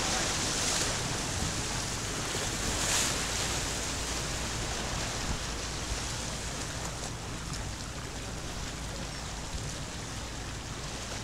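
Small sea waves washing and splashing against the boulders of a harbour breakwater, with a surge of spray at the start and another about three seconds in, then a steadier, slowly fading wash.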